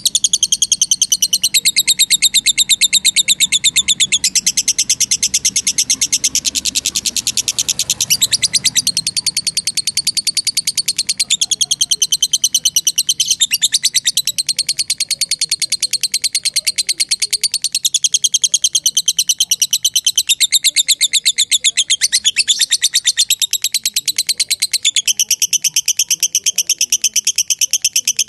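Lovebird's long 'ngekek' chatter: an unbroken run of very fast, shrill repeated notes that steps up and down in pitch every few seconds.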